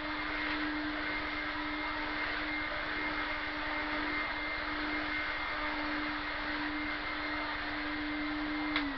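Hoover Hooverette vacuum cleaner motor running steadily, a very quiet hum with a faint high whine, working as it should after a refurbishment. Near the end there is a click, and the motor's pitch starts falling as it winds down.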